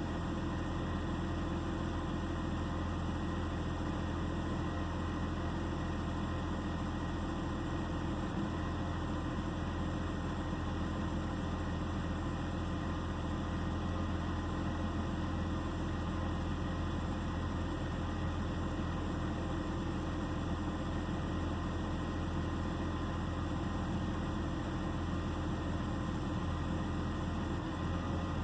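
2009 BMW 328i xDrive's straight-six engine idling steadily, an engine the owner says has a misfire and idle problem.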